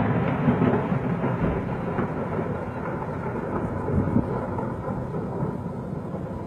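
Rolling rumble and echo of a barrel bomb explosion, slowly fading away, with a small swell about four seconds in.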